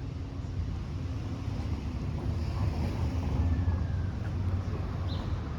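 Wind rumbling and buffeting the microphone over outdoor city background noise, a steady low rumble with no clear single source.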